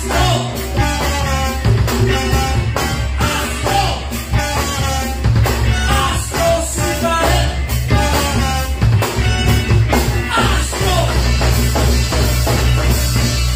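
Live rock band with a horn section playing: saxophone and trombone over electric guitar, bass guitar, drum kit and conga drums, with a man singing into the microphone.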